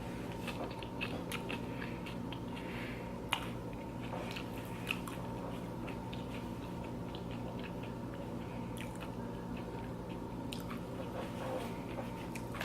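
Close-up chewing and crunching of loaded tortilla-chip nachos: scattered crisp crunches, two sharper ones about three and a half and five seconds in, fewer toward the end, over a steady low hum.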